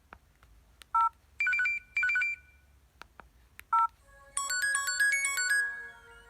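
LG B470 mobile phone playing its preloaded electronic tones. First come a few clicks and short electronic beeps, with a two-note chirp played twice. About four seconds in, a synthesized ringtone melody of quickly changing notes plays, then fades out on a held tone near the end.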